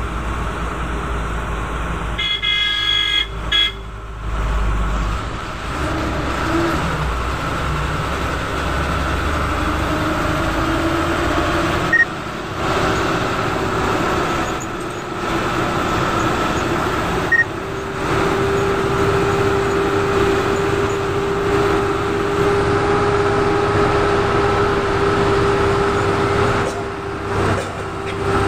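Engine and road noise heard from inside a moving bus, with a vehicle horn sounding about two to four seconds in. A steady whine rises in pitch from about seven seconds and then holds.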